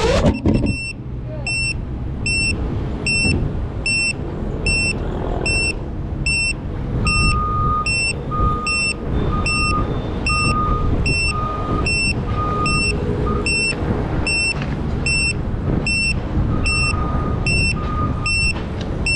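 FPV drone's motors cut out right at the start as it comes down, then the grounded drone's beeper sounds on and on, about two short high beeps a second, with a slower, lower beep joining in two stretches. A steady low rumble of background noise lies underneath.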